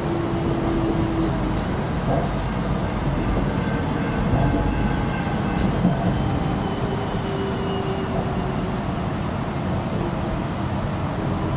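X'trapolis 100 electric train running, heard from inside the carriage as a steady rumble. Faint steady tones come and go over the rumble, with a few faint ticks.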